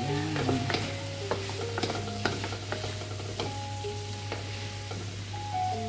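A cooking utensil scraping and clinking against a pan as cooked food is scooped out into a container, over a light sizzle. The clinks come as a run of sharp knocks through the first few seconds, then thin out.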